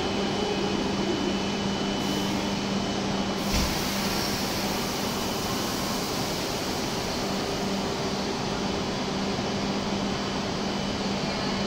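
A W7 series Shinkansen standing at the platform with its doors open, its air-conditioning and onboard equipment giving a steady rushing noise with a low hum. There is a single low thud about three and a half seconds in.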